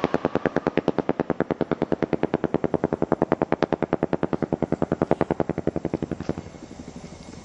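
Large homemade strobe rocket motor, made with whistle rocket fuel and strobe fuel, pulsing in flight as a rapid rattle of about ten pops a second. The pulses grow fainter as the rocket climbs away and die out about six seconds in.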